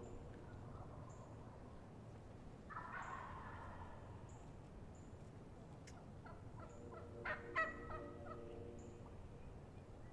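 Wild turkeys at roost: a gobbler gobbles once about three seconds in, a rattling call that drops in pitch. About six seconds in a hen turkey gives a run of tree yelps, the loudest near the end of the run.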